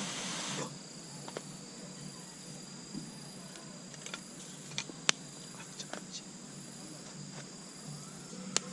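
An insect trilling steadily at a high pitch, with scattered sharp pops and crackles from a wood campfire. A louder hiss cuts off under a second in.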